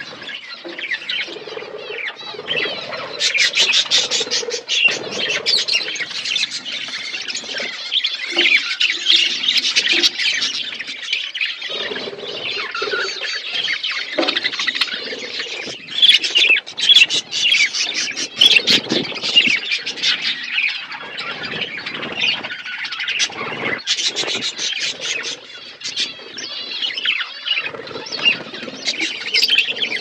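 Budgerigars chirping and chattering, many quick warbling and scratchy calls overlapping without pause.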